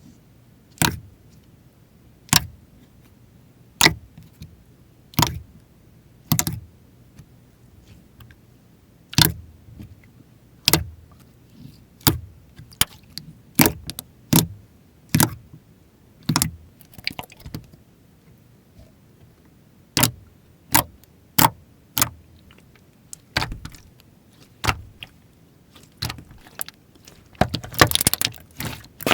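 Slime being pressed and squished by hand, giving sharp sticky clicks and pops about once a second, with a quick run of crackles near the end.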